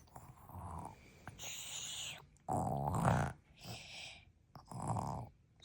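A girl fake-snoring: three exaggerated drawn-in snores, the middle one loudest, alternating with hissing blown-out breaths.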